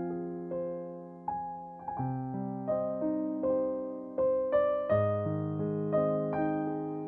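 Calm ambient background music: slow keyboard notes, each struck and left to fade, with deeper bass notes joining about two seconds in and again near five seconds.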